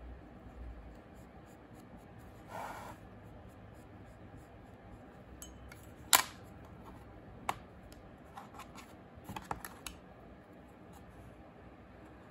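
Clay slabs and a modelling tool handled on a plastic tray: a brief scrape a couple of seconds in, one sharp tap about six seconds in, then a scatter of lighter clicks.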